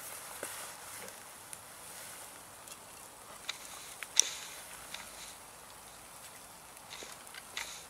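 Metal tongs clicking and scraping against a ceramic plate as grilled back ribs are moved, a few scattered light clicks with one sharper click about four seconds in, over a faint hiss.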